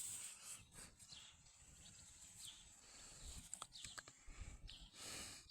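Near silence: faint outdoor background with a few brief high chirps, and a few small clicks a little after the middle.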